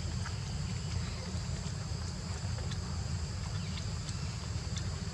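Outdoor ambience: a steady high-pitched insect drone over a low, steady rumble, with a few faint ticks.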